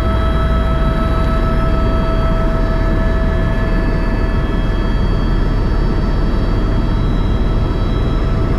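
Tour helicopter in flight, heard from inside the cabin: a loud, steady rotor and turbine drone with several constant high whining tones.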